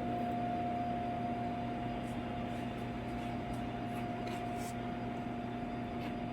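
Steady machine hum with an even hiss and a few faint light clicks.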